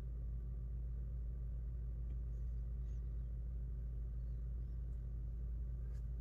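Steady low electrical hum, with a few faint small ticks.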